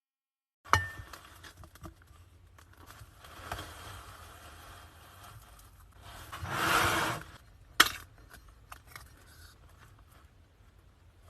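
Slime being handled by hand, with sharp clicks and crackly pops. A louder swelling squish comes about six to seven seconds in, and a single sharp snap just before eight seconds.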